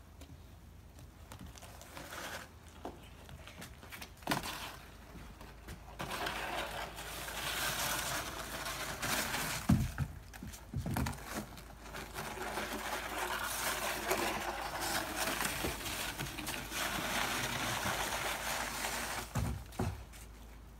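A plastic snow shovel scraping slush across wet wooden deck boards, a long rasping scrape with a few knocks of the blade against the boards.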